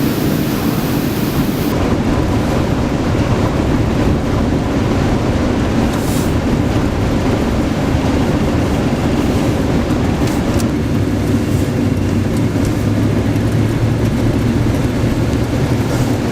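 A vehicle running steadily: a continuous engine hum that deepens about two-thirds of the way through, under constant road and rushing noise.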